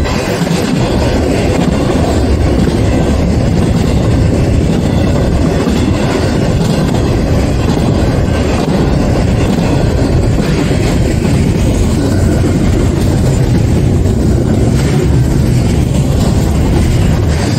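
BNSF intermodal freight train's double-stack and trailer flatcars rolling past: a steady, loud rumble of steel wheels on the rails.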